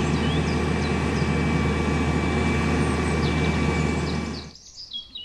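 Diesel engine of a truck-mounted knuckle-boom crane running steadily while the crane lifts a load, with birds chirping over it. The sound cuts off abruptly near the end.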